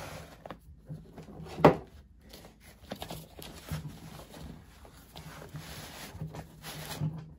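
Handling noise from a nylon gear pouch: fabric rustling and scraping as hands open a pocket, with one sharp knock about two seconds in.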